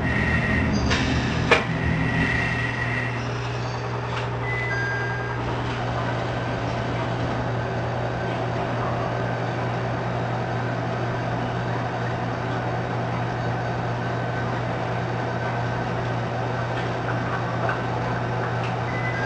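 Diesel railcar's engine running with a steady low drone, heard from the driver's cab. A high thin tone and a single sharp click come in the first few seconds.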